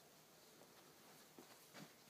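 Near silence: quiet room tone, with a couple of faint soft taps in the second second.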